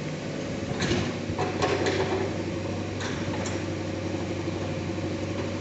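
Bulldozer engine running steadily, with several knocks and scrapes of rubble between about one and three and a half seconds in.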